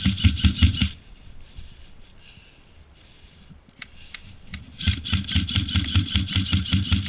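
An airsoft rifle firing rapid strings of shots close to its gun-mounted camera. One string stops about a second in and another starts about five seconds in. A few sharp single clicks fall in the quieter gap between them.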